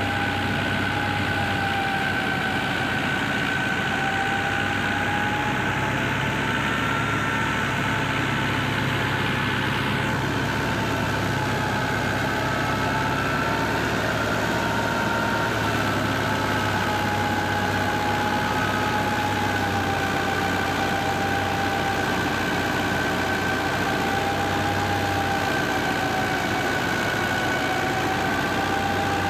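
Wheat thresher running steadily while being fed sheaves, driven by a New Holland Dabung 85 diesel tractor: a constant machine hum with a high whine that wavers slightly in pitch.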